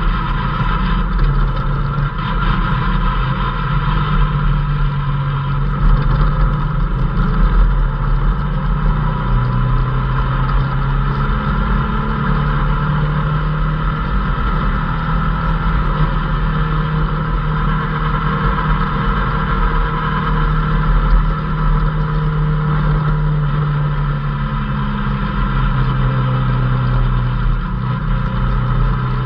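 Off-road race vehicle's engine heard from inside the cockpit while driving hard on a dirt trail, its pitch stepping up and down several times as the revs change.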